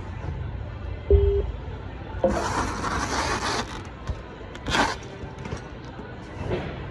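Handling noises over a steady warehouse hum: a thud about a second in, a rustle lasting about a second, then a sharp click.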